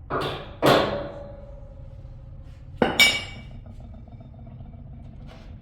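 Hammer blows on metal during work on a carpet cleaning machine: two pairs of sharp strikes about two and a half seconds apart, each ringing on afterwards, the first ring lasting about two seconds.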